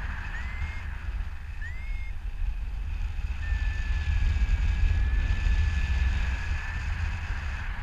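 Wind buffeting the microphone of a harness-mounted camera on a paraglider in flight, a heavy low rumble that swells in the middle. A thin high tone rises in pitch twice in the first two seconds, then holds steady for about three and a half seconds.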